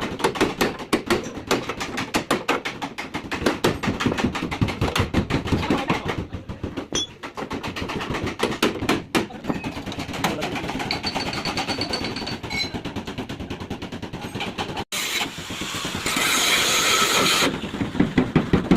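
Fast, continuous mechanical rattling of many rapid knocks, like a power tool at work. About fifteen seconds in it cuts out briefly, then a louder hiss runs for a second or two.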